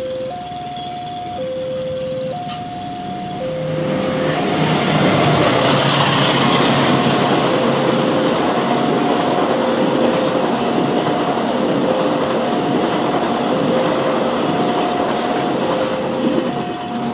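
Railway level-crossing alarm alternating between a higher and a lower tone about once a second. From about four seconds in, a passenger train passes close by with loud rolling wheel and rail noise that partly covers the alarm and peaks a few seconds after it starts.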